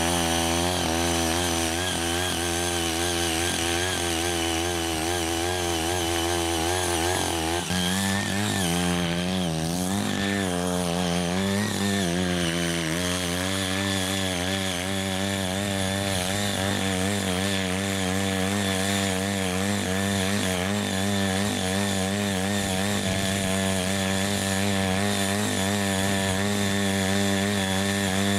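Small gasoline engine of a CHING YEE CY80 walk-behind mini cultivator running under load as its rotary tines till soil and weeds. The engine note wavers up and down, and it shifts to a steadier pitch about eight seconds in.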